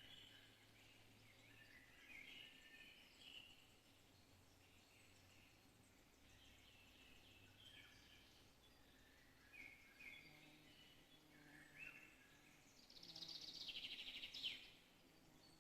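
Faint birdsong in a forest: short chirping phrases repeat every second or two, and a louder, rapid rattling trill comes near the end.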